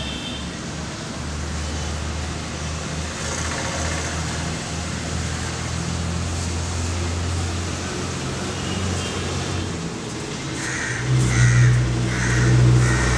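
Outdoor street ambience with a steady low rumble of traffic. Near the end, crows caw about four times in a row over a louder, nearby engine drone.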